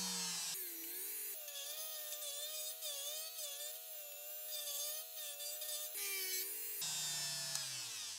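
Dremel rotary tool with a small drum sanding bit running while sanding the edge of a small wooden piece. Its whine wavers up and down in pitch as the wood is pressed against the drum.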